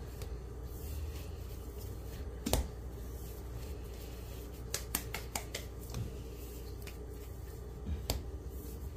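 Hands rolling soft cookie dough into balls and setting them down on the countertop: soft pats with a few sharp taps, one a couple of seconds in, a cluster around the middle and another near the end, over a steady low hum.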